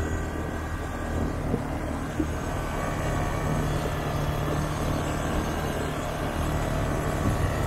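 Quad bike (ATV) engine running at a steady speed while being ridden, an even hum that holds without revving up or down.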